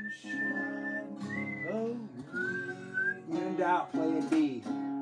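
Two acoustic guitars played together, with a melody whistled over them in phrases through the first three seconds or so.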